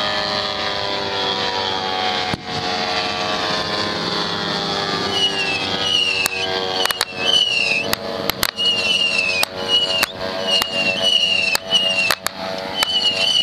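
Model aircraft engines droning steadily. From about five seconds in, a rapid run of sharp pyrotechnic bangs, about a dozen, many with a short falling whistle.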